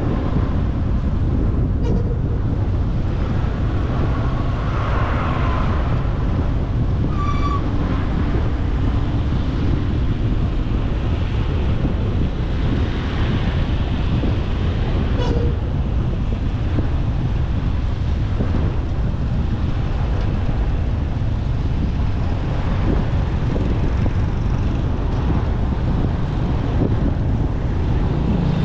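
Steady rush of wind on the microphone over the rumble of road traffic, riding in the open among slow-moving cars and motorbikes. There are short vehicle horn beeps about seven and fifteen seconds in.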